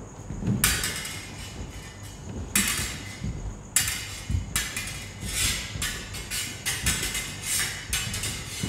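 Stage swords clashing in a duel: a fast, irregular run of sharp metallic strikes, some left ringing.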